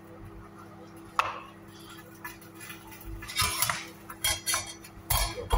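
A stainless steel pan lid is handled on the stovetop, with a sharp clink about a second in and a run of metallic clanks and clatters in the second half, the loudest near the end. A steady hum runs underneath.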